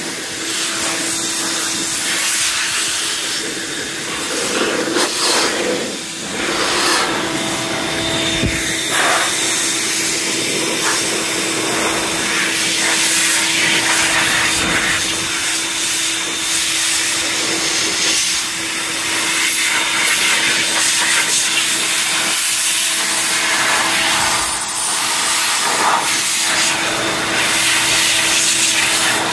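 Corded electric leaf blower running steadily, a rushing blast of air over a constant motor hum, blowing rinse water off a freshly washed engine bay. The air noise rises and falls a little as the nozzle is moved about.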